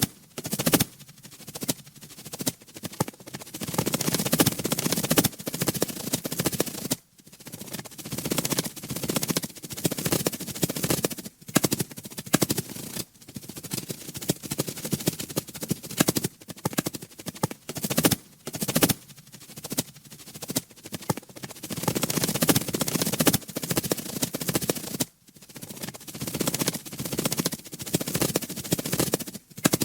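Dragonfly wings clattering in a fast, dry rattle close to the microphone, coming in bursts of several seconds with brief breaks between them.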